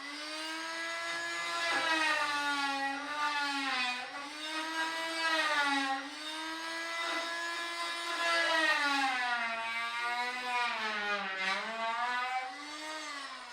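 Rockwell oscillating multi-tool running with a high, steady whine, cutting into the lift's ramp. Its pitch dips and recovers several times as the blade loads up in the cut.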